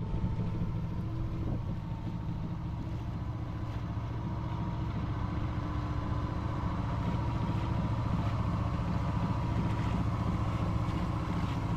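Sailboat's inboard engine running steadily as the yacht motors along, a constant low hum.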